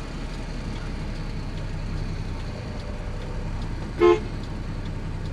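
Truck engine running steadily, with one short horn toot about four seconds in.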